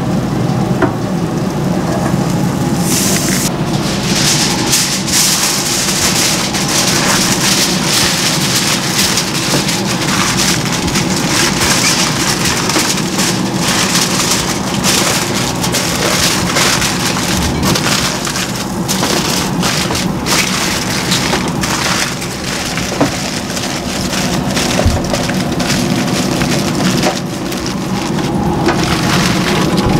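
Aluminium foil crinkling and rustling in irregular bursts as a smoked brisket is wrapped in it, over a steady low hum.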